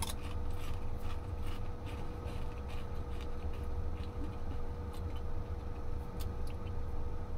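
Steady low rumble of a running car heard inside its cabin, with a faint steady whine over it. A few faint, irregular crunchy clicks come from chewing a potato chip.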